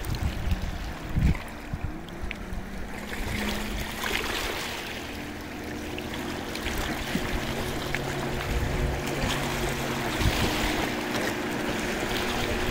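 Speedboat engine running at speed with a steady drone, growing louder toward the end as the boat draws nearer, over the hiss of water from its wake. Wind buffets the microphone in the first couple of seconds.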